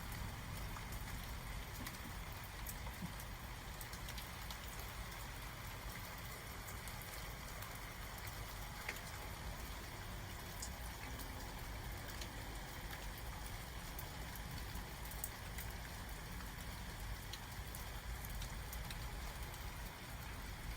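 Steady rain during a thunderstorm, with scattered sharp drop hits.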